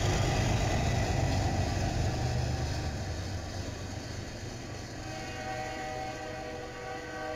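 Train rolling past on the rails, a deep rumble that slowly fades. From about five seconds in, faint steady high tones sound over it.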